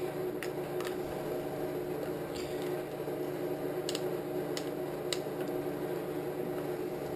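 A steady electrical hum, with a few faint clicks as multimeter test leads are handled and poked onto terminals.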